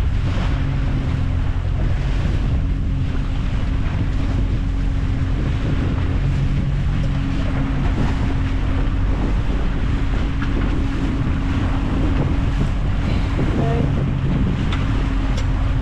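Twin Mercury outboard motors running steadily under way, with wind buffeting the microphone and water rushing past the hull.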